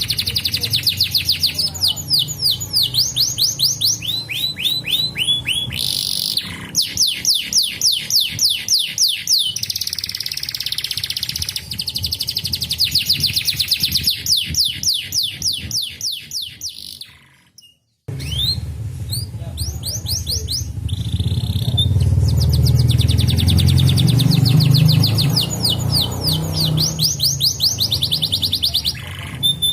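Canary singing in fast trills of rapidly repeated sweeping high notes, phrase after phrase. The song drops out briefly about 17 seconds in, then resumes over a low hum.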